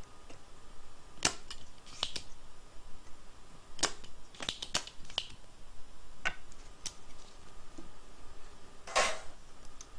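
Irregular sharp clicks and taps of hand tools and small parts handled at a workbench while a fuse is worked out of a power supply, about a dozen in all, the loudest near the end. A faint steady high hum runs underneath.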